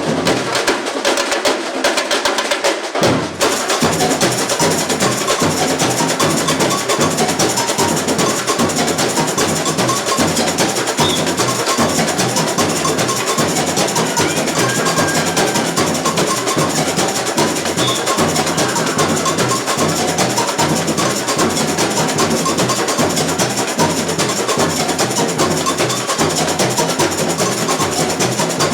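A samba bateria playing a fast, steady samba rhythm on massed drums and hand percussion. For the first three seconds or so only the higher drums play, and then the deep surdo bass drums come in.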